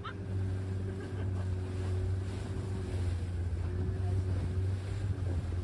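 A small motorboat's engine running steadily under way, a low drone, with water rushing past the hull and wind buffeting the microphone.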